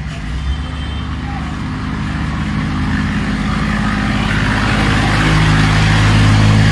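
A motor vehicle's engine running steadily, growing louder through the second half.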